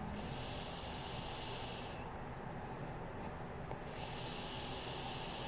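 A sleeping woman breathing heavily: two long, airy breaths of about two seconds each, one at the start and one about four seconds in, over a steady low background rumble.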